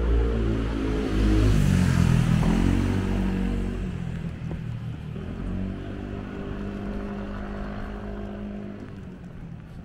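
A motor vehicle's engine passing close by, loudest about two seconds in, then fading steadily as it moves away.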